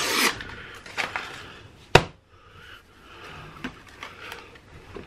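Paper label ripping off a Pillsbury refrigerated pizza-dough tube. About two seconds in the spiral-wound cardboard can bursts open with a single sharp pop, and soft rustling handling of the wrapper and dough follows.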